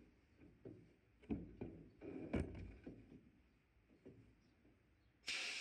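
A few knocks and clunks as the locomotive's body part and the blast gun are handled inside a sandblasting cabinet. Near the end the sandblaster's gun opens with a sudden, steady hiss of air and abrasive: blasting the old paint off has started.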